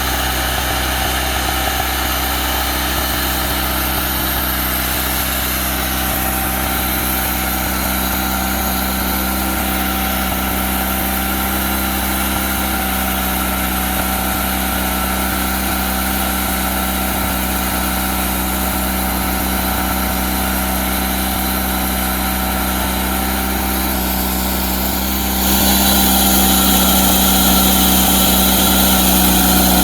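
Engine of a Wood-Mizer LT40 portable bandsaw mill running steadily, then stepping up suddenly to a louder, brighter sound about five seconds before the end and holding there.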